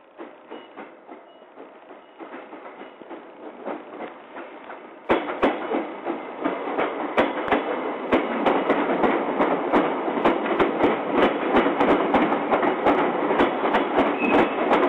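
JR Kyushu 885 series electric express train running past close by, its wheels clattering over the rail joints in a rapid clickety-clack. It grows louder as the train nears and turns sharply louder about five seconds in, as the cars pass right alongside.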